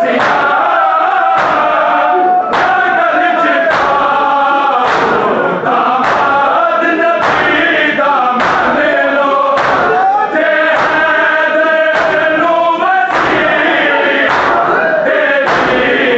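A group of men chanting a Punjabi noha, a mourning lament, in unison. Heavy chest-beating (matam) strokes keep time about once every 1.2 seconds.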